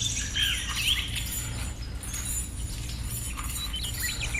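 Birds chirping in short calls, mostly in the first second, over a steady low background hum.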